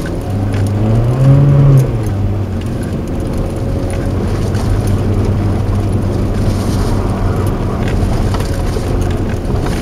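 A Honda car's engine revving hard, rising in pitch over the first two seconds, then holding a steady strained note as the car labours on a very slippery, snow-covered uphill track.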